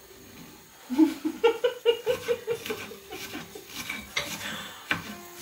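Laughter: a run of short, rhythmic bursts of laughing starting about a second in, then a couple of light clicks of a knife against a plate near the end.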